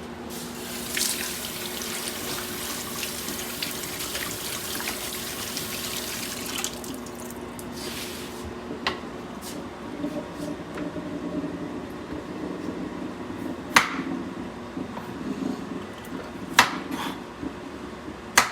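Kitchen tap running water into a sink for about six seconds, with a shorter run shortly after, then a few sharp clicks and knocks of kitchen things being handled, over a steady low hum.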